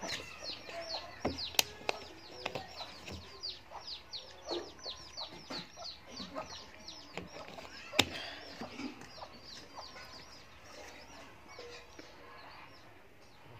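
A bird chirping over and over, short falling chirps about four a second, fading out after about nine seconds. Two sharp knocks cut through it, about a second and a half and eight seconds in, the second the loudest sound.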